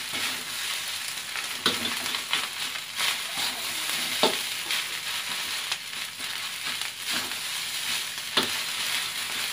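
Egg fried rice sizzling in a wok while it is stir-fried: a steady frying hiss, with the spatula scraping and knocking against the wok now and then.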